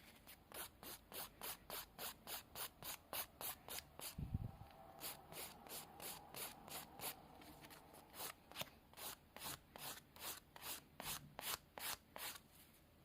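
Hand nail file rasping back and forth over a sculpted nail repair, shaping it, in quick even strokes of about two or three a second, with a short pause about four seconds in and a soft low bump at the same moment.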